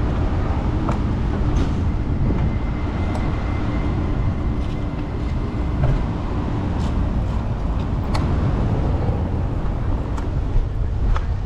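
Wind rushing over the microphone of a moving bicycle, over steady street traffic, with a few small clicks.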